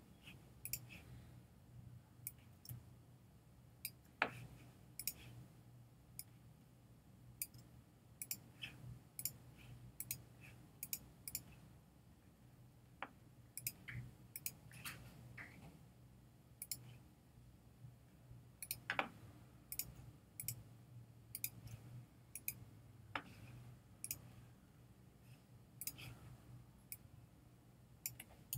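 Irregular, scattered clicks of a computer mouse as shapes are selected and drawn, a few of them louder, over a faint low steady hum.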